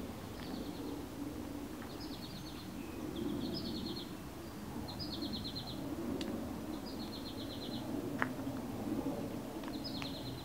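A small songbird singing a short trill six times: each song is a higher opening note followed by a quick run of about eight repeated notes, with a pause of one to three seconds between songs. A steady low rumble, like wind, runs underneath.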